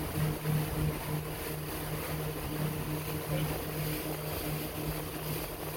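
Tour boat's engine running at cruising speed, a steady low hum that throbs slightly, with wind and rushing water from the hull cutting through the waves.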